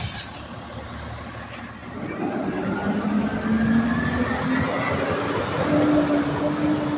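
Automated side-loader garbage truck's engine pulling away: after about two seconds the engine note climbs steadily in pitch and gets louder as the truck accelerates, with a higher whine rising alongside it.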